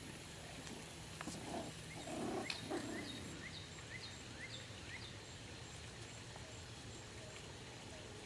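Miniature schnauzer puppies play-fighting, with a few brief low growly sounds about one and a half to three seconds in. A run of short rising chirps, about two a second, follows from about two to five seconds in.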